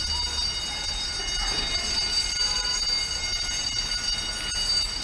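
Fire alarm bell ringing steadily without a break, a continuous ring with many high overtones.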